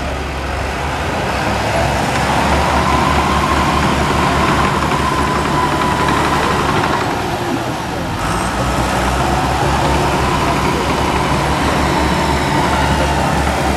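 A heavy vehicle engine running steadily and loudly, with a faint whine that wavers in pitch.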